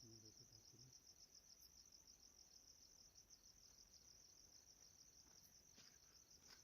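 Faint crickets chirping in a steady, rapid, high-pitched pulsing trill, with a few faint ticks near the end.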